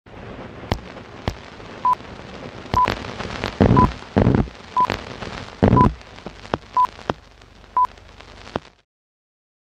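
Old-film countdown leader sound effect: a short, high beep once a second, seven times, over a steady crackle of worn film with scattered sharp pops and a few heavy low thumps. It all cuts off suddenly near the end.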